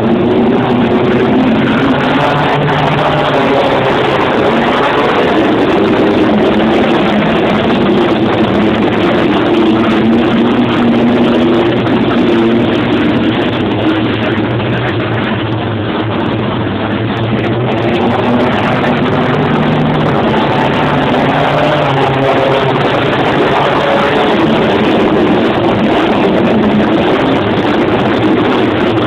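A pack of wingless sprint cars racing on a dirt speedway oval, their V8 engines running loud, with the pitch rising and falling as they lap and go through the turns.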